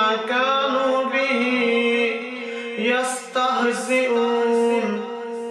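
A man's voice reciting the Quran in Arabic in the melodic tilawat style, holding long, drawn-out notes, with a short break about three seconds in.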